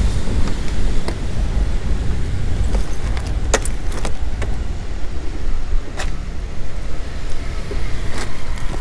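A scooter seat and under-seat storage being opened and bags handled inside: scattered sharp clicks and knocks, a few seconds apart, over a steady low rumble.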